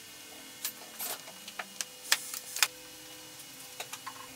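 A string of sharp clicks and light knocks from a wooden jig and metal hold-down clamps being handled on the table-saw top, the loudest about two seconds in and a few faint ticks near the end, over a faint steady hum.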